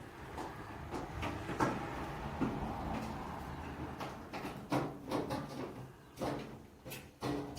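Irregular knocks and clunks over rustling and scraping, as objects are handled and moved about; the sharpest knocks come in the second half.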